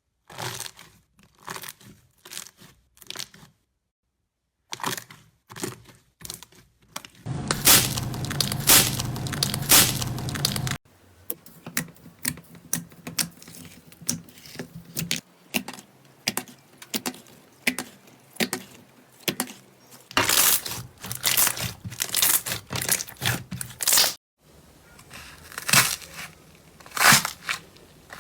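Slime being squeezed and poked, with bursts of crackling and popping clicks, in several short segments that change abruptly.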